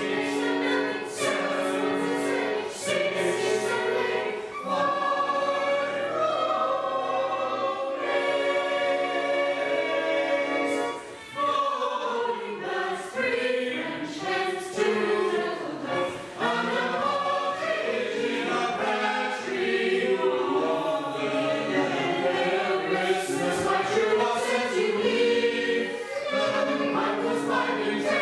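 Small church choir singing a Christmas carol, with sustained sung notes that change chord every second or two.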